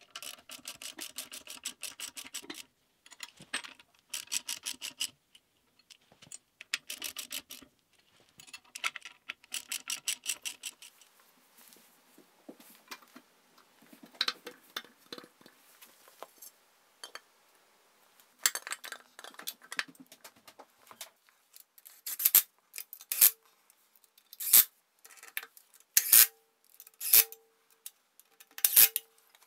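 Socket ratchet clicking in four quick bursts as Whitworth bolts are run in to hold a rear stub axle on the axle casing. Metal parts are then handled, and near the end come several separate sharp metallic clicks, each with a brief ring, about one a second.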